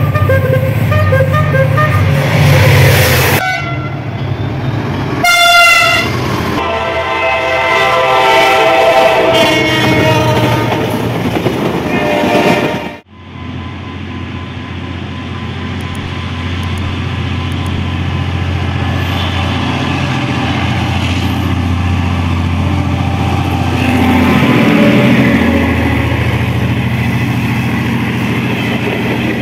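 Diesel locomotives of Egyptian passenger trains sounding their horns in repeated blasts over the steady drone of their engines. After a cut, a train passes with engine and wheel noise, the drone dipping and rising in pitch as it goes by.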